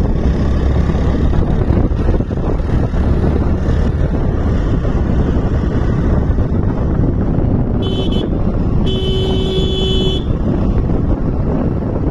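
Riding on a motorcycle: wind rushing over the microphone and the engine running steadily. A vehicle horn sounds twice, a short beep about eight seconds in, then a longer honk of about a second.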